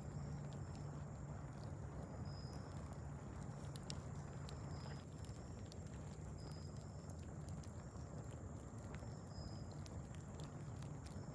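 Wood fire crackling, with irregular sharp pops and snaps over a steady low rumble. A short high chirp repeats every second or two.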